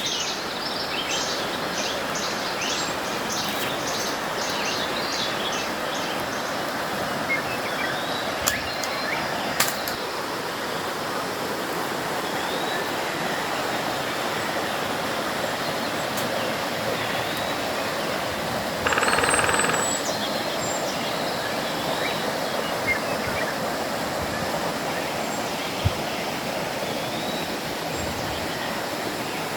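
Water of the Meshushim stream rushing steadily, with birds chirping over it, most in the first few seconds. A short, louder pitched sound cuts in about two-thirds of the way through, and there are a few sharp clicks.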